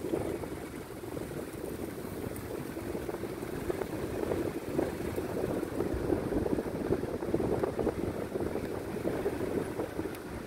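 A vehicle driving slowly along a sandy dirt track: a steady, rough rumble of engine and tyres.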